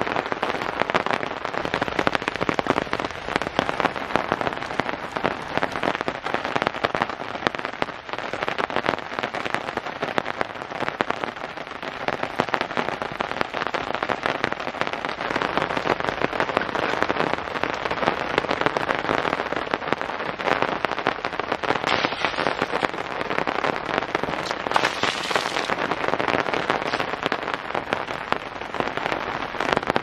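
Heavy rain falling on the roof of a Dodge Sprinter camper van, heard from inside: a dense, steady patter of countless drops on the metal.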